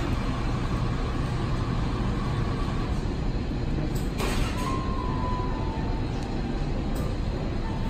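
Steady low rumble of indoor background noise, with a sharp click about four seconds in and a faint short whistle-like tone just after it.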